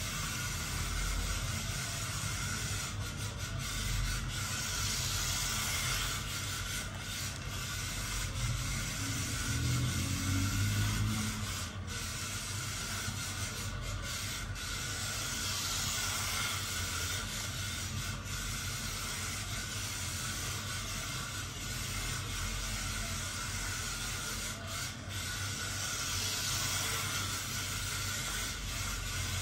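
Small electric motor of a 1:28-scale RC drift car whirring, with its hard tyres hissing as they slide across the track mat; the hiss swells and fades a few times as the car comes round the track.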